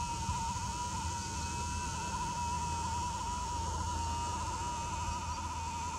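Nikon P900 camera's lens zoom motor whining steadily as it zooms out: a single high, slightly wavering tone over a faint hiss and hum.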